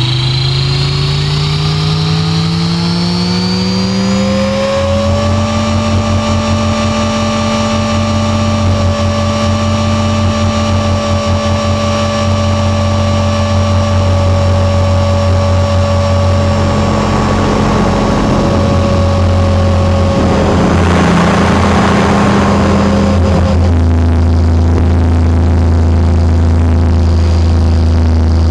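Electric Align T-Rex 500 RC helicopter heard from a camera mounted on it: the motor and gear whine rises in pitch for about five seconds as the rotor spools up, then holds steady in flight. About twenty seconds in comes a few seconds of rushing noise.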